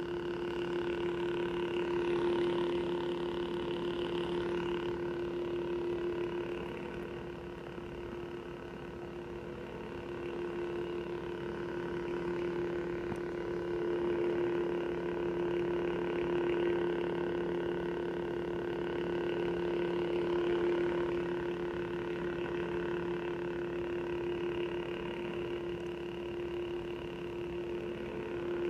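Lightsaber hum from an Obsidian soundboard in an UltraSabers Sentinel V4 lightsaber, playing through the hilt's speaker: a steady electronic drone with one strong low tone and several overtones, swelling and easing gently in loudness while the blade stays lit.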